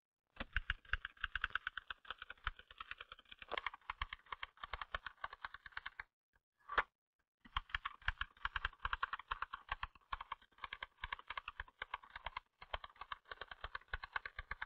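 Fast touch-typing on a typewriter: a rapid, even stream of key strikes. It breaks off for about a second and a half around six seconds in, with a single stroke in the gap, then resumes.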